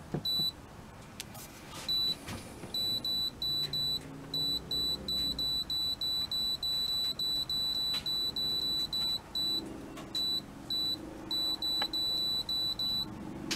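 The touch-button control panel of an Airthereal 9 kW electric tankless water heater beeps with each press of the temperature-up button. It gives a long run of short, high, even beeps at about three a second, broken by a few brief pauses. Each beep steps the set temperature up one degree.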